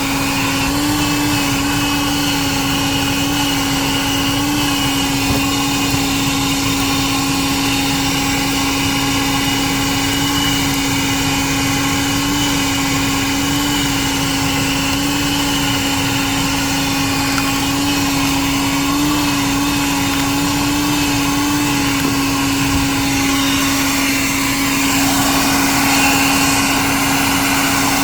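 A 1980s Bon Aire 1-gallon wet/dry car vacuum running steadily, its motor giving a steady hum over a rushing of air. The rushing grows a little louder near the end.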